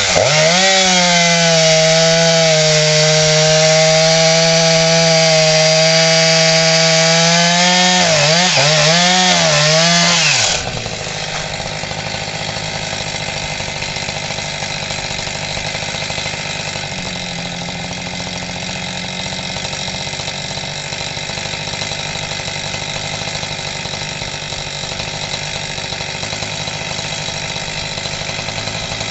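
Husqvarna 346 XP two-stroke chainsaw cutting wood: the engine pitch dips as the chain bites, holds steady under load, then rises and falls briefly. About ten seconds in it drops suddenly to a quieter, steady idle.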